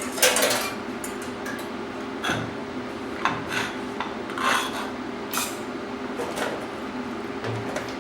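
Irregular metal clanks and scrapes as a steel tab and parts are handled and pushed into place by hand, over a steady low hum.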